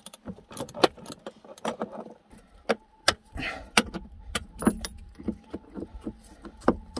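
Irregular metallic clicks and knocks as a snowmobile's front arm suspension shock is worked loose and pulled out of its mounts by hand.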